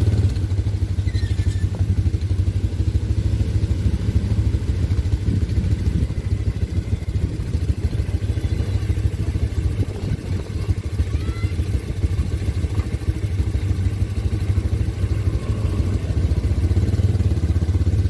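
ATV quad bike engines running at low speed, a steady low engine drone that eases a little about ten seconds in and builds again near the end.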